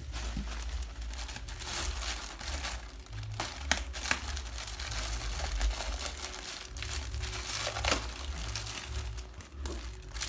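Plastic packaging crinkling and rustling as it is handled and unwrapped, with a few sharper snaps about four seconds in and near eight seconds.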